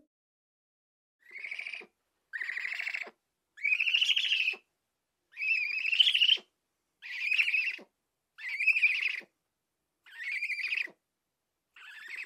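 Eurasian eagle-owl giving a series of eight rasping, high-pitched calls, each lasting under a second, about a second and a half apart.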